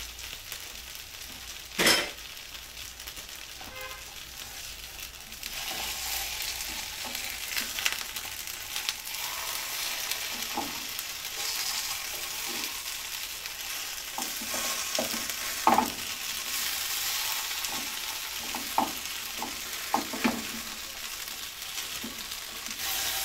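Chickpea patties sizzling in oil in a nonstick frying pan, the sizzle getting louder about five seconds in as they are turned over one by one. Spatulas knock and scrape against the pan a few times.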